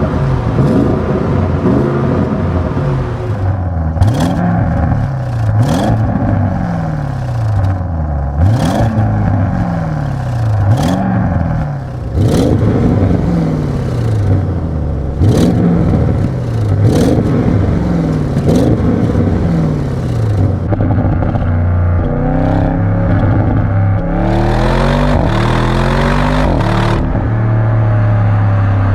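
Audi RS6 Avant's twin-turbo V8 engine revving and accelerating hard, its pitch climbing and dropping again and again through gear changes. Sharp exhaust cracks come at many of the changes. Near the end it settles to a steadier note.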